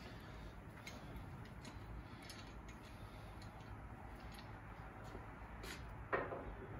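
Scattered light metal clicks and ticks from a loaded rotisserie spit rod and its forks being handled, then a sharp clunk about six seconds in as the spit is set into place on the gas grill.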